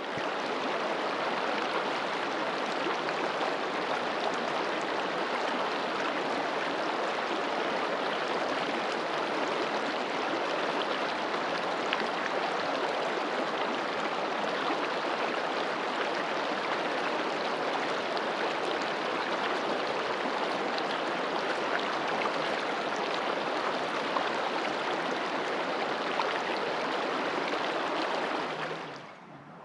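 Shallow mountain river flowing steadily over stones, a constant rushing hiss of water that fades out sharply near the end.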